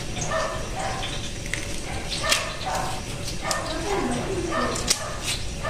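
Knife peeling cassava roots, with a few sharp cuts against the tough skin, under an animal's repeated short, high whining calls.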